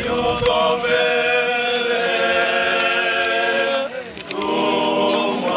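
A group of voices singing unaccompanied in long held notes; the phrase breaks off about four seconds in and the next one begins.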